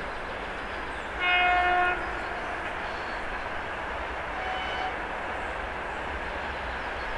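Horn of a 2M62UM twin-section diesel locomotive: a loud blast under a second long about a second in, then a shorter, quieter blast a few seconds later, over the steady running of the Caterpillar-engined locomotive and its freight train.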